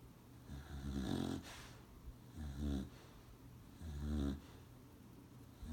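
Beagle snoring: three heavy snores about a second and a half apart, with a fourth just starting at the end.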